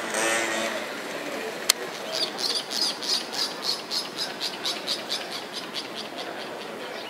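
A car engine fades out at the start, a single sharp click comes at about two seconds in, then a bird gives a fast series of short high chirps, about four or five a second, that slowly fade.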